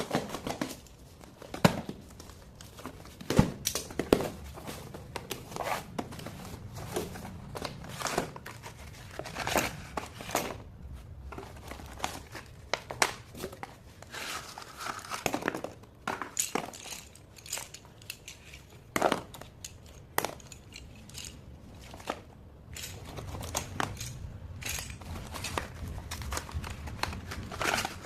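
Packaging of a box of slate pencils being handled and opened: irregular crinkling and tearing with many sharp clicks and taps.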